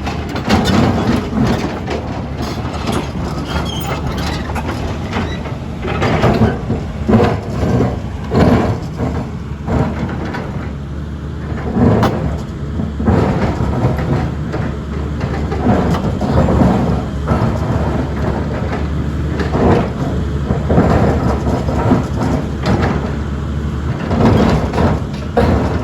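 Cat 320D excavator's diesel engine running under load while the bucket teeth dig, scrape and knock against rock, with a steady low rumble and irregular grinding crunches.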